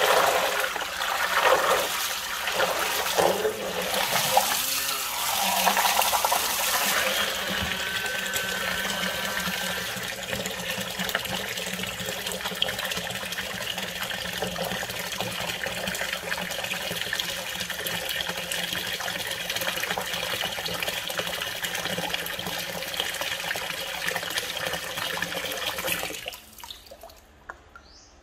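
Small DC motor driving a homemade PVC-pipe water-jet thruster held in a basin of water: gushing, splashing water over a steady motor hum. It is more uneven and splashier in the first few seconds, then runs steadily and cuts off abruptly near the end.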